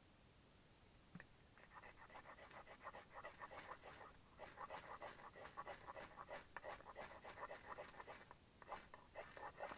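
A knife scraping a ferrocerium (ferro) rod in quick, repeated short strokes, striking sparks onto tinder to light a fire. The scraping starts about a second and a half in, with brief pauses between runs of strokes.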